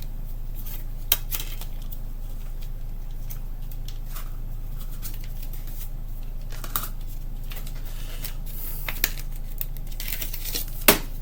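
Plastic CD jewel case and its booklet being handled, with scattered light clicks and taps over a steady low electrical hum.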